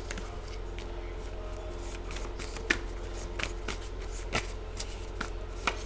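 A deck of tarot cards being shuffled and handled by hand: irregular papery clicks and flicks, with a few sharper taps of the cards.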